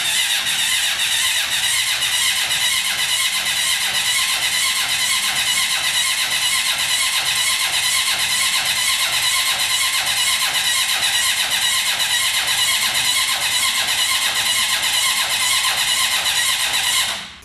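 Electric starter cranking the Honda CB750's inline-four engine, a steady whir with a fast, even pulse, as the flood-damaged engine is tried for the first time after getting spark and fuel. It stops abruptly near the end.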